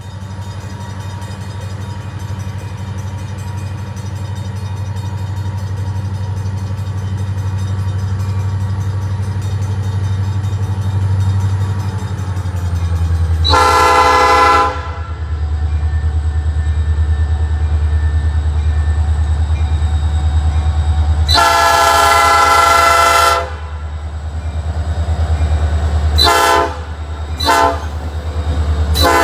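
Norfolk Southern diesel locomotive approaching, its engine's low drone growing steadily louder. Its air horn sounds a blast of about a second around halfway through, a longer blast of about two seconds later, then two quick short toots, and another blast begins right at the end.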